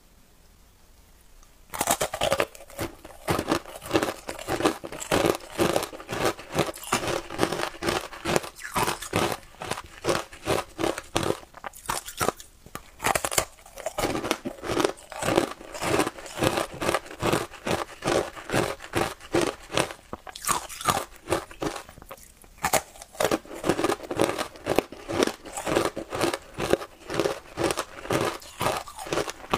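Frozen shaved ice coated in matcha milk powder being bitten and chewed close to the mic, a dense run of crisp crunches several times a second. It starts about two seconds in, after a quiet opening.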